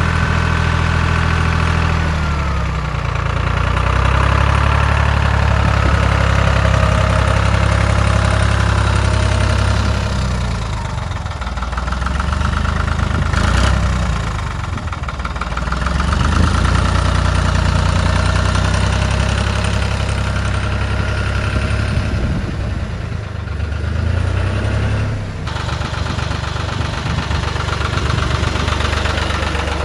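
Ferrari 86RS vineyard tractor's engine running while the tractor is driven slowly, its engine speed dropping and picking up again several times.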